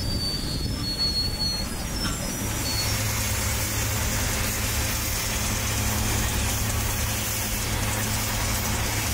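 A machine running steadily, with a low steady hum that comes in about two seconds in.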